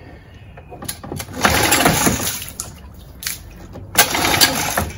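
7.5 hp Mercury two-stroke outboard being pull-started, the engine turning over in two ragged bursts, about a second in and about four seconds in. It is a primed, choked start attempt on a freshly cleaned carburetor that has not yet settled into a steady run.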